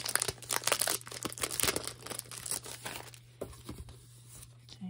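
Plastic shrink wrap crinkling and tearing as a pack of game cards is unwrapped by hand, densest for the first two and a half seconds, then thinning out.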